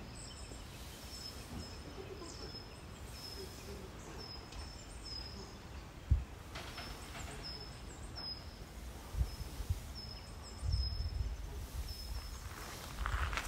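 Outdoor ambience with a bird calling again and again in short, high, paired notes over low rumbling background noise. A single low thump comes about six seconds in, and footsteps start near the end.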